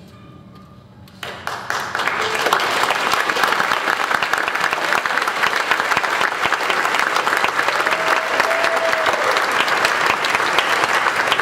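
Audience applauding. It starts suddenly about a second in, as the last faint sung note dies away, and then holds as a steady, dense clapping.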